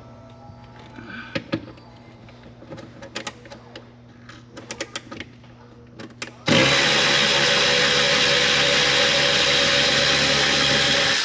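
Light clinks and taps of hand tools on metal engine parts, then, about six and a half seconds in, a cordless power tool starts running and holds a loud steady whir for about five seconds before stopping near the end.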